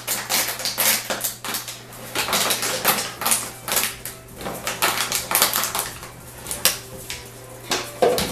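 Empty plastic water bottles clattering and crinkling as Sealyham Terrier puppies knock and drag them about a cardboard tray: a rapid, irregular run of light plastic clicks and knocks.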